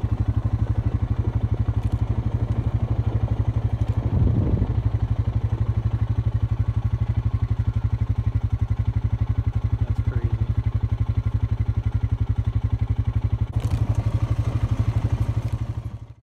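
A vehicle engine running at a steady pace, heard as a rapid, even, low throb. It cuts off abruptly near the end.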